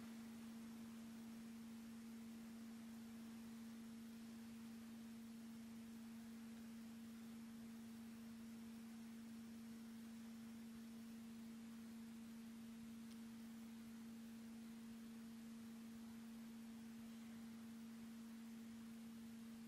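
Near silence with a faint steady hum: one low tone with a weaker tone an octave above it, unchanging throughout.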